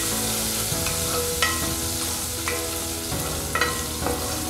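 A hot-oil tempering (phodni) of mustard seeds, cumin, curry leaves and ginger-garlic-chili paste sizzling in an enamel pot as it is stirred with a spoon. About five sharp scrapes and knocks of the spoon against the pot break through the steady sizzle.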